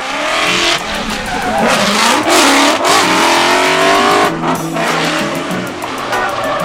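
Performance car engine revving hard, its pitch climbing steadily for about two seconds before breaking off near the middle, with tyre noise underneath.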